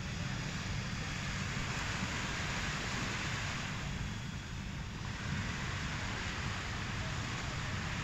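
Small sea waves washing onto a sandy beach, with wind buffeting the microphone in a steady low rumble.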